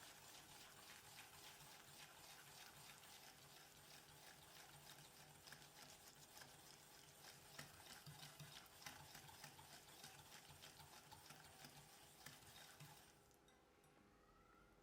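Faint, rapid stirring in a mixing bowl as cake batter ingredients are mixed, a steady scratchy patter of quick small strokes that stops about 13 seconds in.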